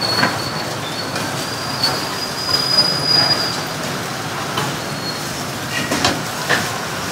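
Hot oil sizzling and crackling steadily as a wok full of small balls deep-fries, with a thin high whistle coming and going over it in the first few seconds and a couple of louder pops near the end.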